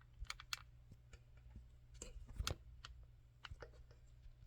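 Faint, irregular small clicks and taps as a just-picked EVVA ICS lock and its picking tools are handled, the loudest about halfway through.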